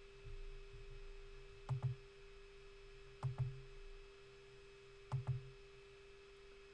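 Computer mouse button clicked three times, about a second and a half apart, each click a quick press-and-release pair with a soft thud, over a faint steady hum.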